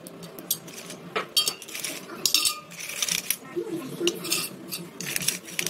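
Slate pencil sticks dropped by hand into a steel pot, clinking and clattering against the metal in an irregular run of sharp clicks.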